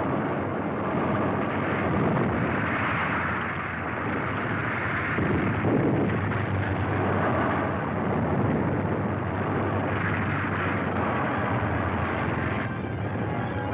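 Continuous rumbling battle noise of explosions, the dubbed sound-effects track of an old wartime film. Music comes in near the end.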